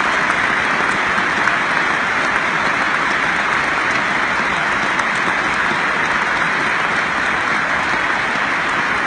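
A large stadium crowd applauding, a loud, steady wash of clapping.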